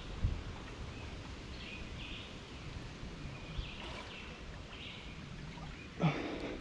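Swamp ambience with birds calling now and then over a steady low background, and water sloshing as someone wades slowly through knee-deep water. A louder slosh or splash comes about six seconds in.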